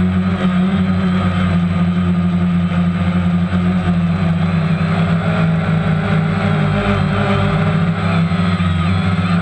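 Multirotor drone's motors and propellers humming steadily at a held pitch in hover and slow flight, heard loud and close from the camera on board.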